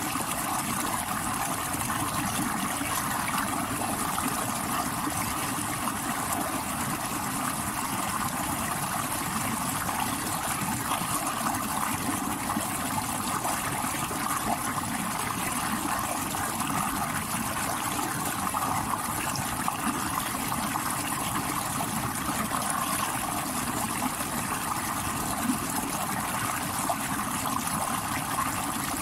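Stream water rushing steadily over rocks: an even, unbroken rush with no pauses or single splashes standing out.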